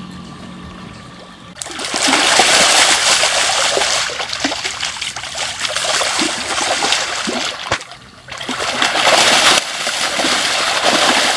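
Loud, irregular splashing in shallow floodwater, starting about one and a half seconds in, with a brief lull near eight seconds.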